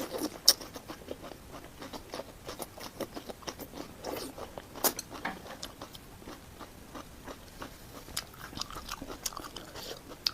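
Close-miked eating: a person biting and chewing food, with irregular small clicks and smacks of the mouth and a few louder bites.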